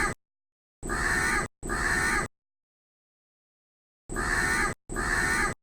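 Crow cawing: the end of one harsh caw, then two caws in quick succession about a second in, and after a pause two more near the end, each about three-quarters of a second long, separated by dead silence.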